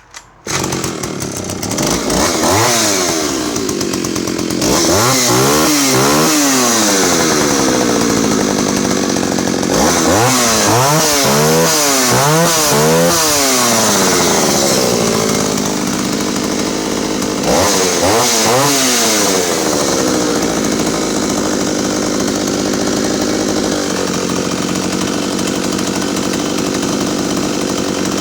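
Jonsered Raket 60's 56cc two-stroke chainsaw engine starting right away from the pull, then revved up and down several times before settling into steady running.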